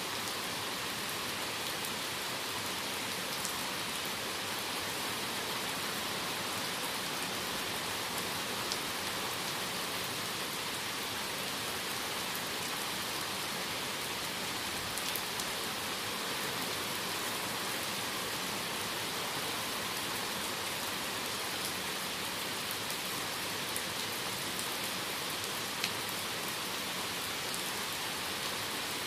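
Steady rain falling through forest canopy, a dense even hiss with scattered sharp taps of single drops landing close by.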